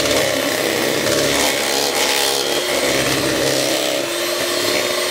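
Electric hand mixer running steadily, its beaters whirring through thick cream cheese batter in a bowl, blending it until smooth.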